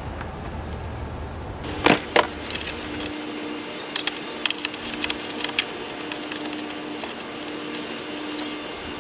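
Sharp clicks and knocks of hand tools on the battery installation: two loud ones about two seconds in, then a quick cluster of lighter clicks a couple of seconds later, over a steady low hum.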